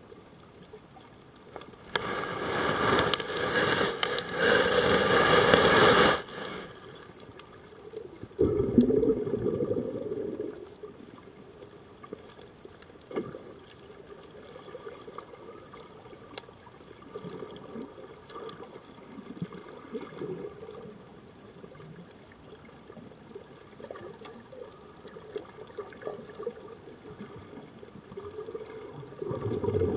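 Scuba diver's regulator breathing underwater: a loud rush of exhaled bubbles from about two to six seconds in, then a lower bubbling rumble around nine seconds and again near the end, with a few faint clicks in the quiet stretches between.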